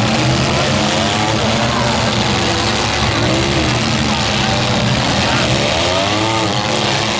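Several demolition derby car engines running loudly together, revving up and down a few times.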